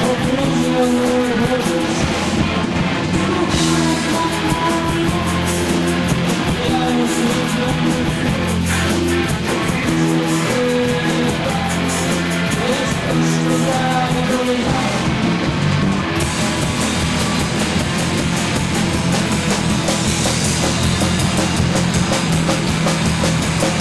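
Live rock band playing: distorted electric guitars and bass over drums with busy cymbals. The cymbals grow brighter about sixteen seconds in.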